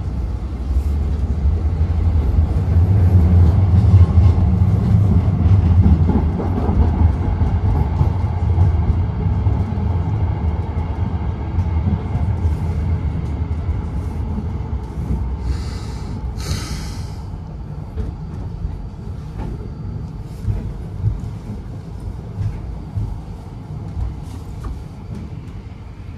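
Kraków tram running along its rails, heard from inside the car: a low rumble that grows loud a couple of seconds in and then slowly dies away, with two short hisses about two-thirds of the way through.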